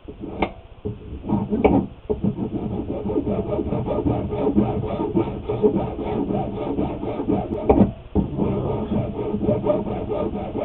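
A hand file rasping back and forth over the edge of a small plastic part, in rapid repeated strokes. There are a few separate scrapes at first, then steady filing with a short break about eight seconds in.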